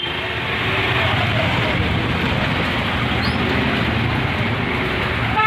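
Steady street traffic noise, a constant hum and rush of passing vehicles. A vehicle horn starts right at the end.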